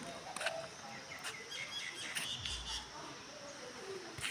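Birds chirping, a few short high calls in the middle, with a few faint clicks.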